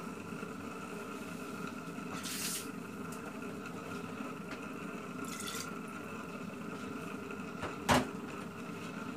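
Duck curry simmering in an aluminium pot on a gas stove: a steady bubbling hiss with a couple of brief spits, and one sharp click near the end.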